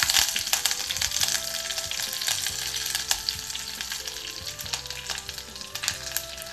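Fresh curry leaves sizzling and crackling in hot oil in an earthen pot, tempering with dried red chillies and mustard seeds. The hiss is loudest at first and fades steadily over the few seconds as the leaves fry.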